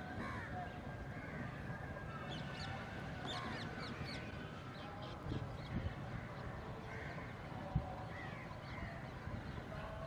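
Several crows cawing on and off, with a few quicker, higher bird calls about two to four seconds in, over a low steady rumble.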